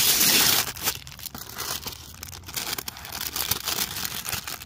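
Crinkly printed packaging wrap being handled and pulled open, crackling and rustling, loudest in the first second and then in short crinkles.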